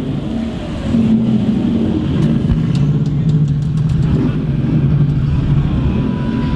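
Car engine running at low revs, its pitch dropping a little about two seconds in, with a few light ticks partway through.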